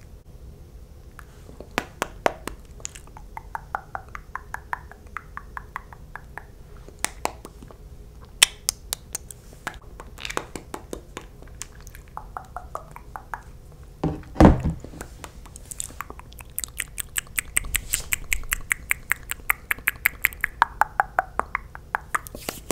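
Close-miked wet, sticky mouth and lip sounds from glossy lips: clicks and smacks, scattered at first, then fast runs of clicks in the second half, with one louder pop about two-thirds of the way through.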